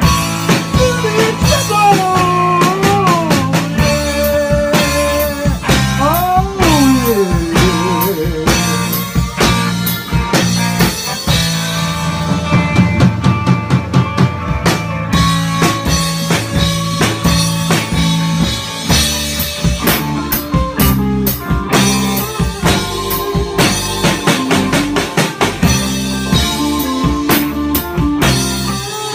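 A rock band playing live: drum kit, electric bass and electric guitar, with gliding lead notes between about two and eight seconds in.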